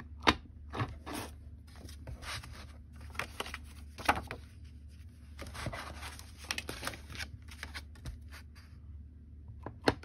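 Folded cardstock card bases being picked up, shuffled and opened flat on a cutting mat: irregular paper rustles and slides with a few sharp taps, the sharpest about a quarter second in and just before the end.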